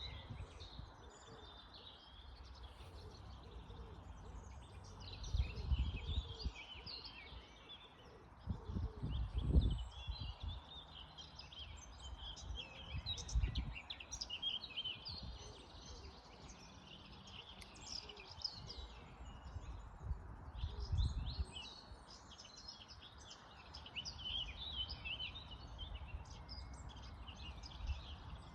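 Many birds chirping and calling at once in a steady, overlapping chorus. Several brief low rumbles break in now and then.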